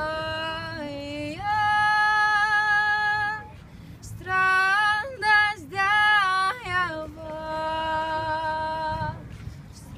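Solo woman's voice singing a Lithuanian traditional folk song unaccompanied, in long held notes, with a pause for breath about three and a half seconds in.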